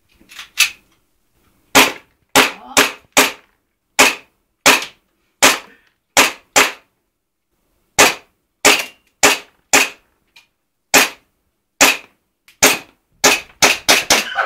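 Airsoft gun firing a string of about two dozen sharp shots, irregularly spaced, with a pause of about a second and a half midway and a quicker run of shots near the end.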